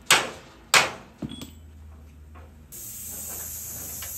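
Two sharp hammer blows on a cold chisel against a rusted truck frame rivet, then a lighter tap. About two and a half seconds in, a plasma cutter starts with a steady hiss and a low hum as it cuts into the rivet.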